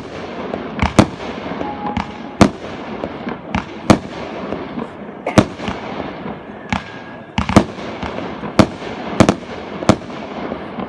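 Aerial fireworks going off: about a dozen sharp bangs, roughly one a second, over a steady crackle and rumble from the display.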